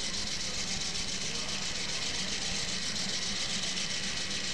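A steady engine running at an even pace, unchanging throughout, with a strong hiss over it.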